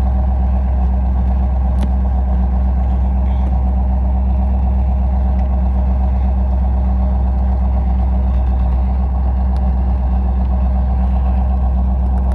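1987 Camaro IROC-Z's 305 small-block V8 idling with a steady, even rumble.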